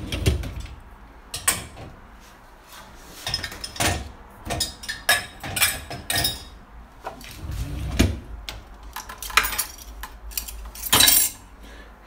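Dishes and glassware clinking and knocking against the dishwasher's wire racks as they are moved and arranged by hand: an irregular series of clinks, loudest about a second before the end.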